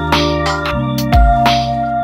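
Background music: sustained keyboard chords over a beat.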